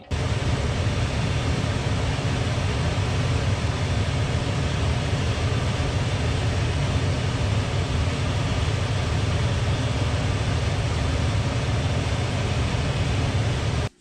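Goodman propane furnace's circulating blower fan running with a steady, loud whoosh, while the burners fail to light.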